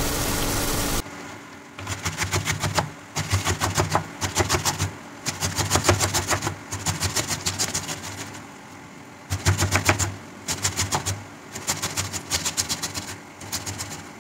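Onions sizzling in a frying pan for about the first second, then a tomato being grated on a stainless steel box grater: quick rasping strokes in bursts of about a second, with short pauses between.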